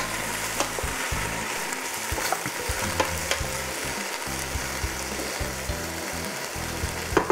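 Onions and bell peppers sizzling in hot olive oil in a stainless steel pot while being stirred with a wooden spoon, with the spoon now and then knocking against the pot in sharp clicks.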